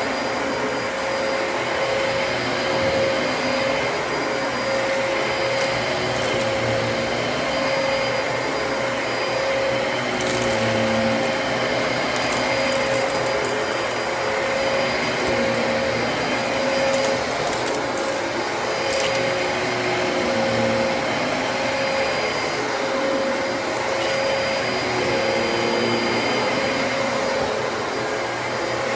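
Dyson DC33 upright vacuum cleaner running steadily, with a few brief crackles of debris being sucked up.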